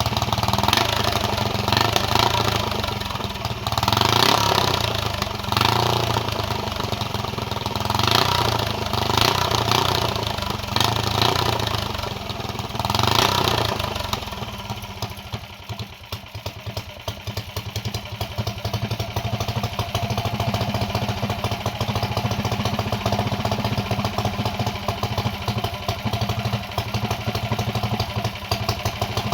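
Yamada VR460's engine running, revved up briefly about six times over the first half, then settling into a steady idle.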